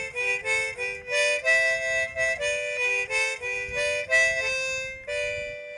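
A free-reed instrument with a harmonica-like tone plays a short, lively tune of quick sustained notes, often two at a time, ending on one longer held note near the end.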